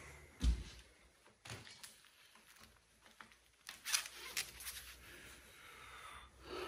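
A low thump about half a second in, then the zipper of a racing suit being pulled down with a short rasp, and the fabric rustling as the suit is opened.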